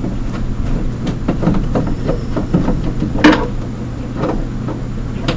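Hands handling hard objects on a workbench: an irregular run of knocks and clicks, the loudest about three seconds in, over a steady low hum.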